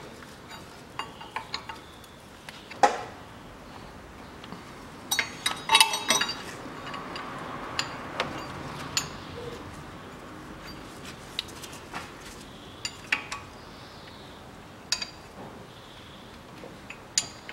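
Scattered metallic clicks and clinks of a hand tool working the timing-belt tensioner roller on a Lada VAZ 2110's 16-valve engine as the timing belt is tensioned. A quick cluster of clinks about six seconds in is the loudest.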